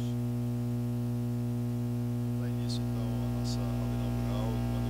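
Steady electrical mains hum in the microphone and sound system, with faint murmuring voices in the room about three seconds in.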